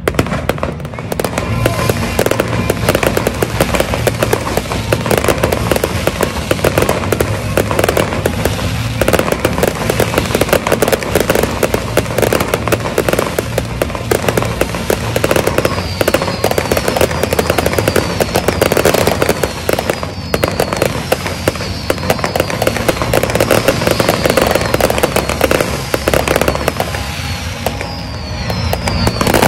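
Fireworks display: a dense, continuous crackle and popping of aerial shells bursting, with music playing. From about halfway a string of short falling whistles repeats over it, and the bursts thin out near the end.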